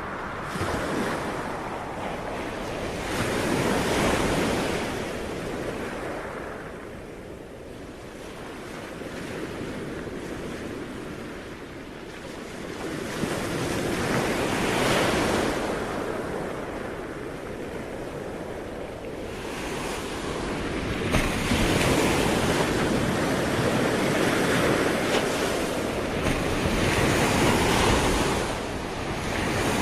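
Sea waves breaking and washing on a shore, the surf swelling and ebbing in slow surges several seconds apart, with some wind on the microphone.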